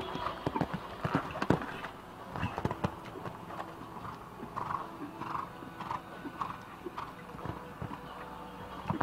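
Hoofbeats of a horse cantering on a sand arena, an uneven run of soft strikes with the sharpest about a second and a half in. Near the end a heavier strike as the horse lands from a jump.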